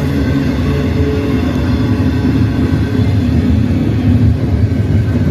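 CN freight train rolling past, a loud, steady low rumble.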